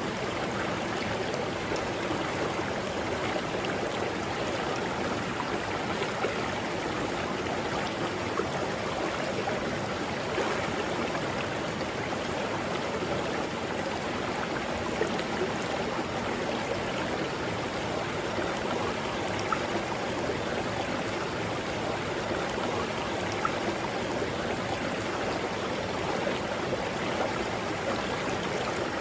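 Mountain river flowing over rocks: a steady rushing of water with small splashes here and there.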